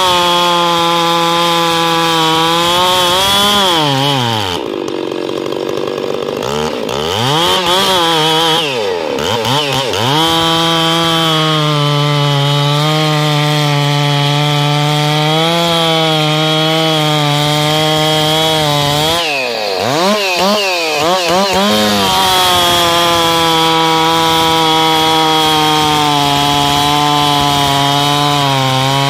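Ported and tuned Stihl MS660 two-stroke chainsaw running at high revs while cutting through a log, its pitch steady under load. Twice, about 4 seconds in and again about 20 seconds in, the revs fall away and swoop up and down several times before the saw settles back into a steady cut.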